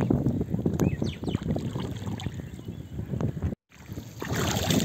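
Wind buffeting the microphone over splashing water. A brief dropout to silence comes about three and a half seconds in.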